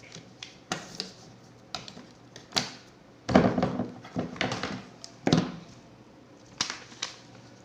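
Hand tools working on a coaxial cable: scattered clicks with a few short scraping crunches, the loudest about three and a half seconds in and again just after five seconds.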